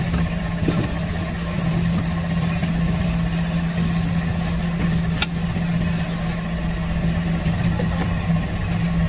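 Steady drone of running machinery with a strong, even low hum, and a couple of light knocks from a cardboard box being handled.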